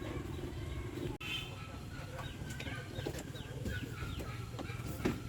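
Birds chirping in short falling notes over a steady low hum, with a sharp knock near the end.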